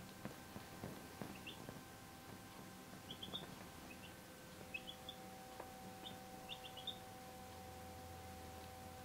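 Week-old white bantam silkie chicks peeping faintly: short high chirps, often two or three quick rising notes together, every second or so. There are a few soft taps in the first few seconds.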